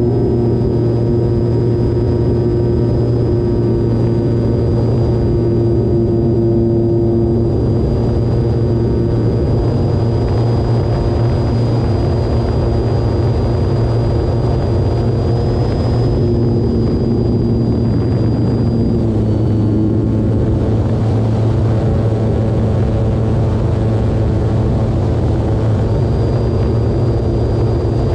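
Electric brushless motor and propeller of an E-flite Turbo Timber Evolution RC plane running at a steady throttle, with a high, even whine over a constant rushing noise.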